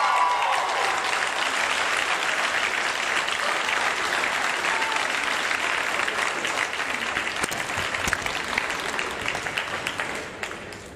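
Audience applauding as the routine's music stops at the start; the clapping fades away near the end.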